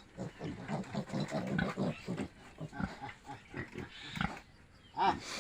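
Pigs grunting in short, irregular grunts, several a second, with a louder one near the end.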